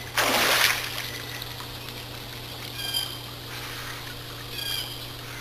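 Pool water splashing once, briefly, near the start, as a person moves in the water.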